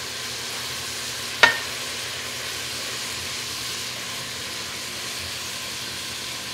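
Meat and vegetables sizzling and popping steadily in a hot pot, with a single sharp tap about a second and a half in.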